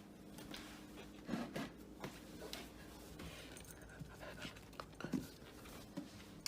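Dog panting quietly, with scattered faint clicks and rustles.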